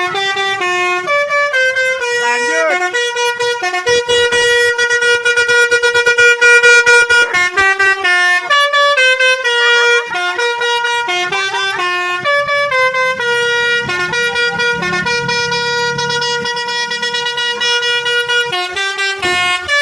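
Telolet basuri, a multi-tone bus air horn, playing a tune of held horn notes that step from pitch to pitch with short breaks between them. There is one long held note about four seconds in.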